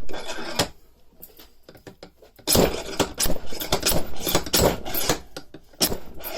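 Slide hammer on a bearing puller being worked: the steel slide weight clanking against its stop in sharp metal knocks, a few at first, then a fast run of repeated strikes from about two and a half seconds in, trying to pull a worn roller bearing out of a mower gearbox.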